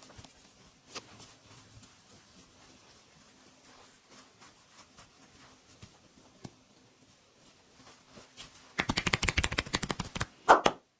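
Hands doing percussive massage: a fast run of slaps or chops, many strokes a second, for about a second and a half near the end, then one louder slap. Before that, only faint small clicks over a low hum.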